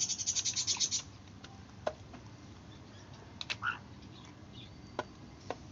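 Chick calling from inside a chicken egg on the point of hatching: a fast, high chittering trill for about the first second, then a few faint sharp clicks and one short chirp.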